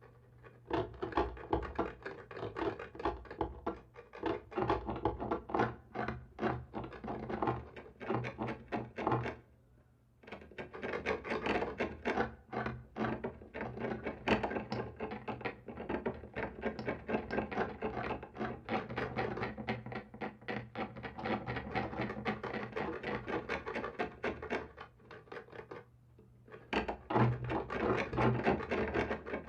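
Scratching on a wall: fast, irregular scraping strokes in long runs, broken by a short pause about ten seconds in and a lull near the end.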